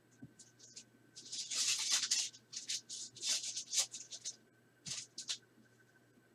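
Bowman Chrome trading cards and pack being handled: dry rustling and sliding scrapes in irregular bursts, loudest around two seconds in and again near three and a half seconds, with a few light clicks.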